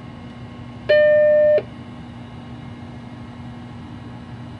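Apple Macintosh 512K startup beep: one steady tone lasting under a second, about a second in, as the computer restarts after its reset button is pressed. A steady low hum runs underneath.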